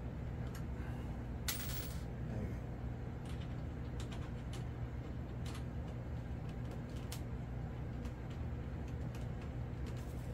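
Scattered faint clicks and taps of a small hand tool working at the grub screw of a plastic pushrod quick connector on a foam glider's tail, over a steady low hum.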